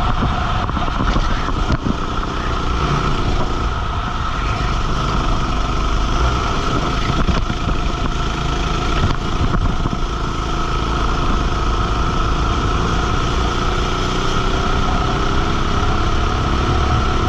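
Go-kart engine running on track, close to the microphone, its note sliding down and back up in pitch near the start and again near the end.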